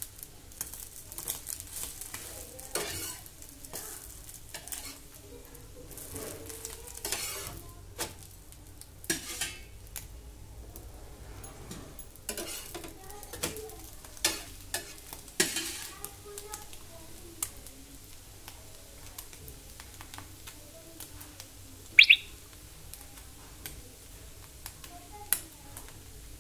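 A dosa sizzling faintly on a hot tawa, with a steel spatula scraping and tapping against the pan from time to time. Late on, one sharp metal clink rings out, louder than the rest.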